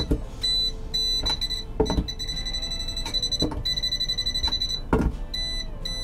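Non-contact voltage tester pen beeping at the outlet's slots: quick short high beeps that merge into longer steady tones, the sign that it is detecting live voltage at the new outlet. A few sharp knocks come in between.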